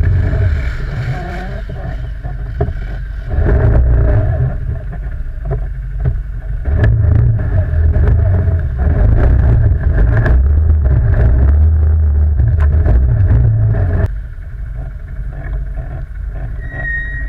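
ATV quad bike engine running under changing throttle while riding, with scattered sharp clicks and knocks; the engine sound drops off about three-quarters of the way through.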